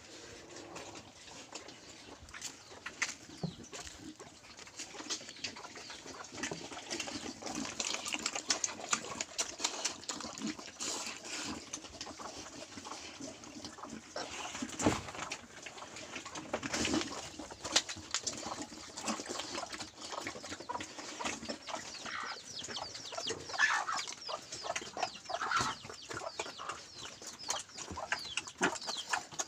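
White pigs feeding and rooting in a pen, with many short chewing, clicking and snuffling sounds. Birds call in the background a few times near the end.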